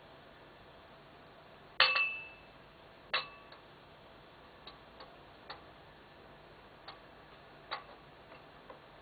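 Crockery clinking and tapping as a civet picks through leftover food on a table: a sharp ringing clink about two seconds in, a second one about a second later, then a string of fainter taps.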